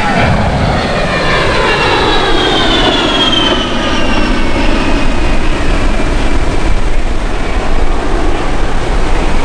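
Fairchild Republic A-10 Thunderbolt II's twin General Electric TF34 turbofan engines passing in a flypast: a jet whine that falls in pitch over the first few seconds, over a steady rumble that grows slightly louder about four seconds in.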